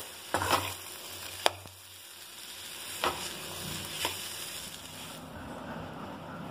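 A metal spoon stirring mashed potato in a metal kadai over the heat, with a steady sizzle of the frying tempering and a few sharp scrapes of the spoon against the pan. The sizzle drops away about five seconds in.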